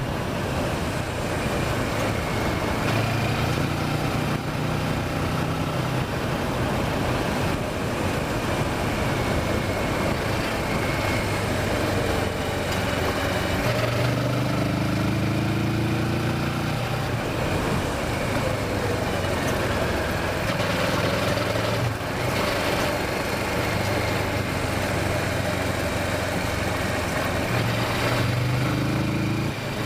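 Kawasaki Versys motorcycle engine running under way, with steady wind and road noise. The engine note climbs twice as the bike accelerates, about halfway through and near the end.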